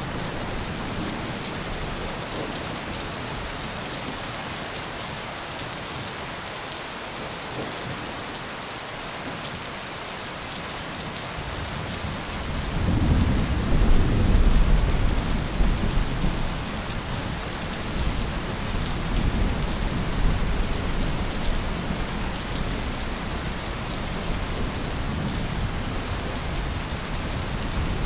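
Steady rain with a long roll of thunder that swells about halfway through, peaks a couple of seconds later and rumbles away over several seconds.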